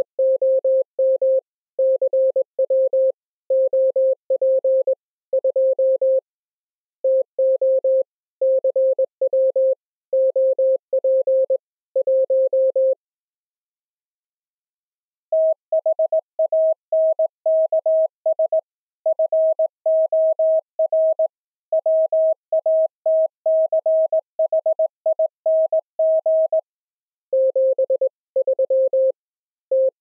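Computer-generated Morse code tones from two software keyers: a lower tone (about 528 Hz) keys text for the first half, then after a pause of about two seconds a higher tone (about 639 Hz) spells out "thanks for watching", and the lower tone returns near the end sending "73 TU".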